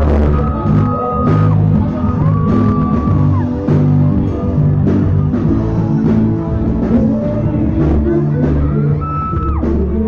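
Live pop-rock band playing loudly: drum kit, bass, electric guitar and a male lead singer with long held notes.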